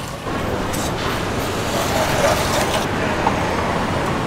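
Road traffic close by: cars passing on the street, a steady rumble that grows a little louder about halfway through.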